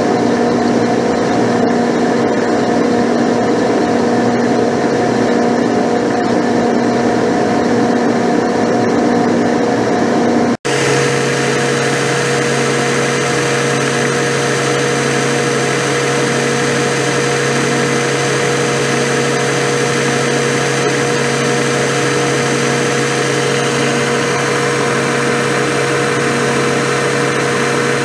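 Vertical milling machine running with an end mill cutting along the edge of a cast-iron straight edge casting: a steady spindle and motor hum with cutting noise. About a third of the way through, the sound changes suddenly to a different steady hum with a lower tone and a faint regular pulsing, as a larger 1 3/4 inch end mill takes the cut.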